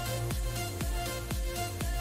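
Background music with a steady beat, about two beats a second, over sustained tones.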